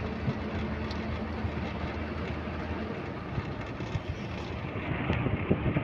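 Bus engine and road noise heard from inside a moving bus: a steady drone with a low hum underneath and a few louder knocks near the end.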